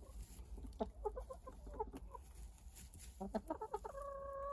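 Roosting chickens clucking and grumbling in clusters of short calls, then one longer steady call near the end.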